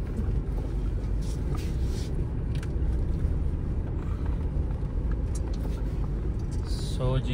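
Diesel Mitsubishi Pajero rolling slowly, heard from inside the cabin: a steady low rumble of engine and tyres. A voice starts right at the end.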